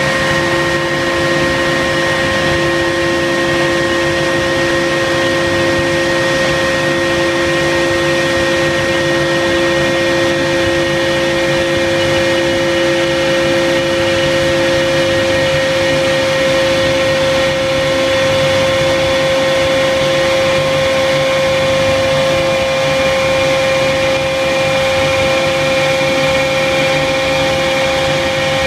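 Machinery running steadily: an even, loud hum with several constant whining tones over it, unchanging throughout.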